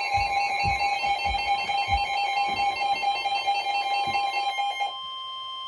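Emergency Alert System attention tone from a radio: two steady, shrill alarm tones sounding together. The lower tone cuts off about five seconds in, leaving the higher tone alone. The tone announces an incoming tornado warning.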